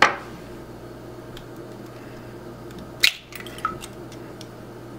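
A hen's egg cracked open over a glass mixing bowl: a sharp tap as it starts, then about three seconds in another sharp crack and a few small clicks as the shell is pulled apart and the egg drops in. A faint steady hum runs underneath.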